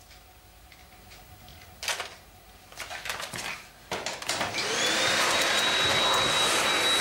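Canister vacuum cleaner switched on with a foot press about four seconds in: the motor whines up to speed and then runs steadily with a high whine. Before it, a few handling clicks and knocks.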